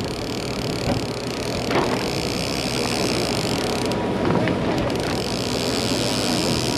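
Steady engine drone on a deep-sea fishing party boat, with wind and sea noise.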